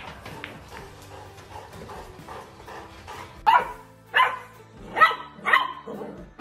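Golden retriever puppy barking: four short, high barks about half a second apart, beginning about halfway through, after a faint stretch.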